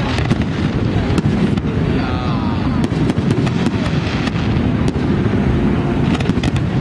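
Fireworks display going off in quick succession: a continuous rumble of booming shells with many sharp cracks, growing thicker near the end.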